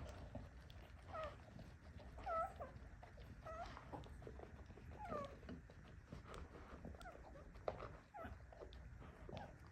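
Newborn puppies giving short, high squeaking whimpers, about eight separate calls that each bend or fall in pitch, with soft clicks in between.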